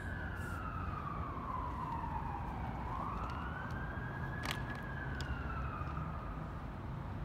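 An emergency vehicle's siren wailing: one tone slides slowly down, climbs back up about three seconds in, and starts falling again, over a low, steady traffic rumble.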